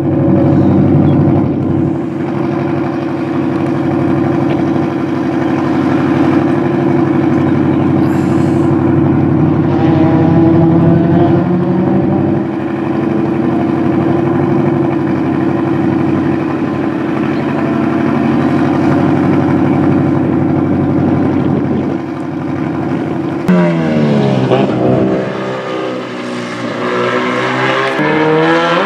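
Car engine idling at a steady pitch, then revving up and down near the end, its pitch falling and rising as a drift car gets going.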